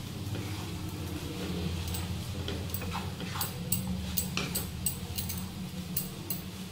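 A spatula stirring flattened rice in a kadai, with sharp clicks and scrapes against the pan about three times a second from about two seconds in, over a steady low hum.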